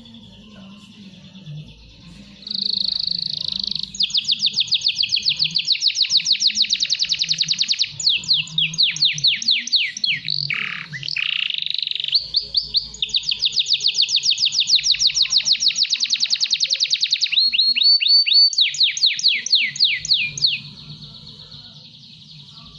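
Young male domestic canary singing a long song of fast rolling trills, about ten notes a second, with a few lower sweeping notes about ten seconds in. The song starts a couple of seconds in and stops about two seconds before the end. This is a young male coming into full song.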